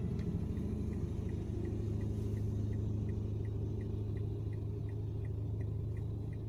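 Steady low rumble of a car driving on a rough dirt road, heard inside the cabin, with a faint regular ticking about three times a second.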